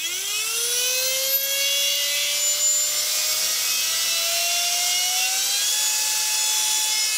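Homemade brushless CNC spindle, a Turnigy P2627L 4200kv outrunner driving a Foredom H43T handpiece, starting up and running free with no tool on the work. It gives a hiss of air and a whine that climbs in pitch quickly at first, then more slowly, and holds steady from about five and a half seconds in.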